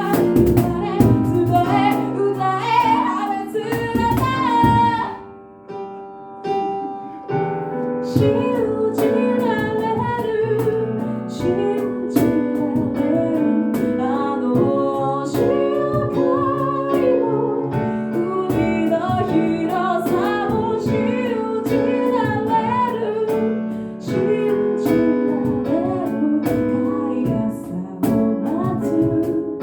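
An a cappella vocal group singing: a female lead over held backing chords, with sharp clicks keeping the beat. It drops to a softer held chord about five seconds in, then comes back at full level.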